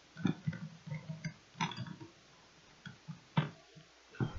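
Irregular light knocks and clicks of handling noise, a few short ones in the first second and two sharper ones near the end.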